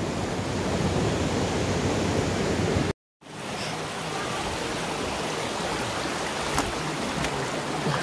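Shallow river rushing steadily over rocks and stones. The sound cuts out for a moment about three seconds in, then fades back in.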